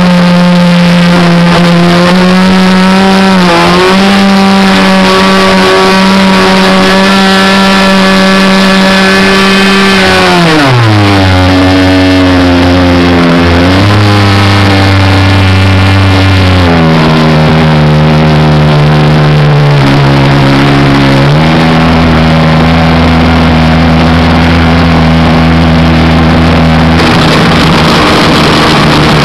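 Engine of an RC Cessna Skylane 40 model plane running loudly, recorded from on board under the wing. It holds a steady high pitch, is throttled back about a third of the way in so the pitch falls, then runs lower with a brief blip and a step back up around two-thirds through.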